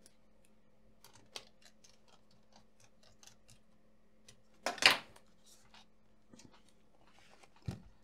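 Small clicks and light taps of hands handling an opened laptop on a bench. A louder clatter comes about halfway through as it is turned over, and a short low thump near the end as it is set down.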